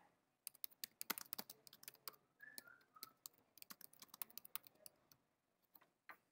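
Faint typing on a computer keyboard: a quick, uneven run of keystrokes that stops about five seconds in, with a couple of single clicks near the end.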